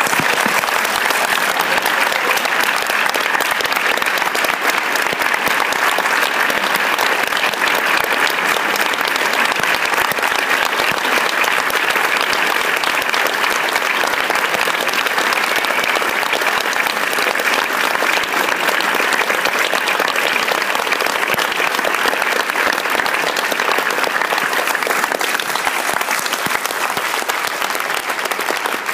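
Large audience clapping steadily and loudly, a dense unbroken applause.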